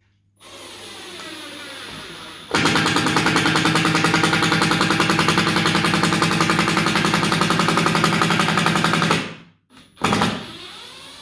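Milwaukee M12 Fuel impact driver in its slowest mode driving a wood screw into a board: the motor spins freely at first, then a couple of seconds in the impact mechanism starts hammering in a fast, even rattle for about six and a half seconds until it stops. A brief second spin of the motor follows near the end.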